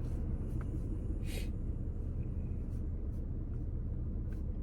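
Steady low rumble of a car heard from inside the cabin while it idles or creeps in a queue, with a few faint clicks and a short rustle about a second in.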